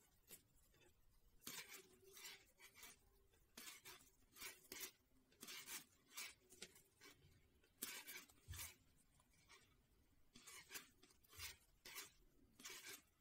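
Faint scratching and rustling of wooden knitting needles and yarn as knit stitches are worked, in short irregular strokes about one or two a second.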